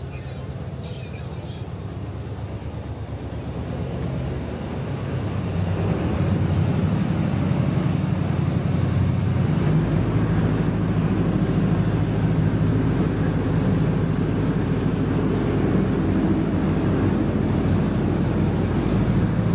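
Bus engine running steadily with a low hum, growing louder about five seconds in and deepening again about halfway through.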